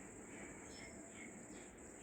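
Faint outdoor background: a steady high-pitched insect drone, with faint, scattered bird chirps.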